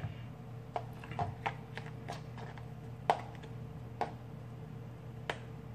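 Scattered light clicks and taps of a knife against a plastic container and a food chopper's plastic jar as chopped greens are scraped in, the sharpest about three seconds in, over a steady low hum.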